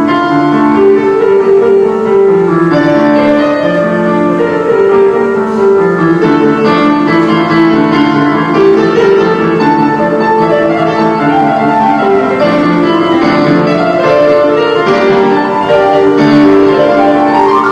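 Instrumental background music led by piano, with sustained notes and chords.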